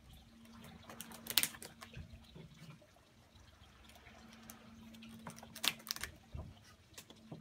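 Rubber bands being stretched and let go around a watermelon, with two sharp snaps, about a second and a half in and near the end, among small clicks and light rustling of a plastic bag of rubber bands.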